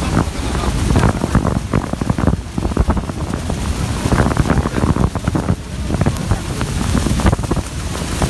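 Gusty wind buffeting and rumbling on the microphone aboard a tour boat, over a steady rush of water.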